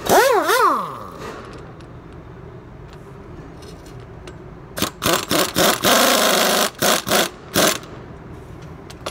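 Pneumatic impact wrench on the top nut of a front strut held in a spring compressor: a brief spin whose pitch rises and falls twice, then, about five seconds in, a series of short hammering bursts with one longer burst in the middle.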